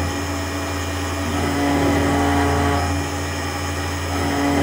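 Brushless DC spindle motor of a homemade mini CNC router running steadily while an eighth-inch end mill cuts delrin. The pitch holds steady while the level swells and eases every second or two.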